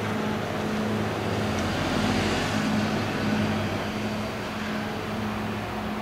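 Ship's diesel engine running with a steady low hum, swelling somewhat two to three seconds in as the vessel manoeuvres under power.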